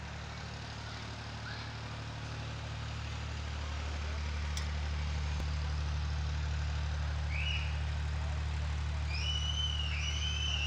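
Steady low machine hum, slowly getting louder, with a few short high chirps near the end.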